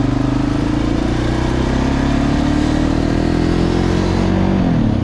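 A Suzuki quad's engine running under steady throttle while it pushes another quad along to bump-start it; the note creeps slowly up and then drops off near the end as the throttle comes off.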